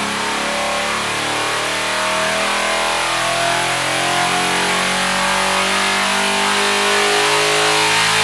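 A 417-cubic-inch Gen III Hemi V8 with dual spark plugs per cylinder, running under load on an engine dyno, getting gradually louder.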